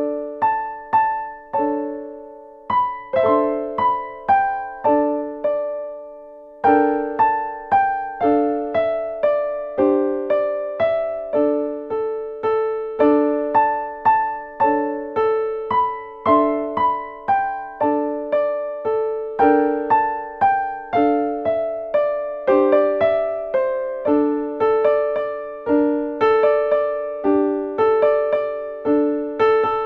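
Solo piano playing offertory music: a slow melody over chords, each note struck and left to ring out, with a short pause a few seconds in.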